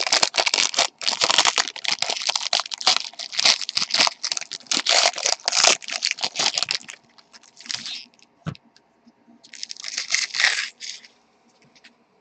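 Crinkling and tearing of trading-card pack wrappers being handled and ripped open, a dense crackling for about seven seconds, then two shorter bursts of crinkling.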